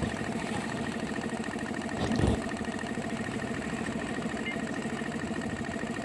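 MECO belt-driven tank air compressor, pump and 0.5 hp electric motor, running with a steady, rapid pulse as it charges the tank past 100 psi toward the 110 psi pressure-switch cut-off. A brief louder sound comes about two seconds in.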